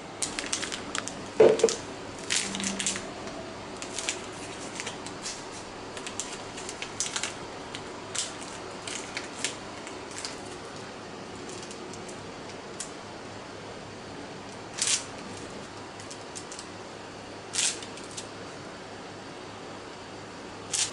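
Plastic piping bag crinkling and rustling in short bursts as it is handled, twisted and clipped shut around mashed potato, with a dull knock about one and a half seconds in. After about 13 seconds the crinkles come only now and then.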